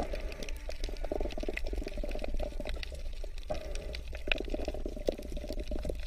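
Underwater sound of water picked up by the camera: a steady low rumble with many small crackling clicks.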